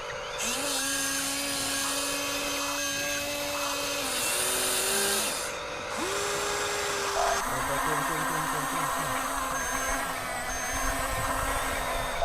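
Electric motors and plastic gearboxes of radio-controlled toy construction machines whining as they are driven. The pitch steps up and down every second or two as the motors start, stop and change load.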